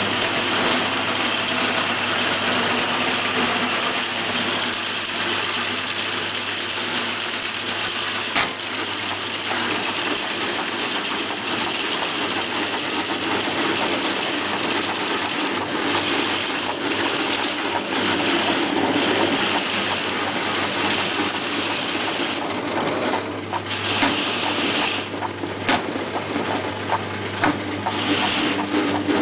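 RIDGID K-400 drum drain cleaning machine running, its electric motor turning the drum while the spinning spiral cable is power-fed through the AutoFeed head into a floor drain: a steady mechanical noise over a low hum. Scattered knocks and clicks come in over the last several seconds.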